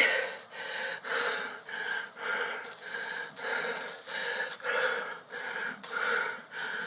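A man's heavy, rhythmic panting, about one breath every two-thirds of a second, the breathing of someone winded from climbing up onto a bunk bed.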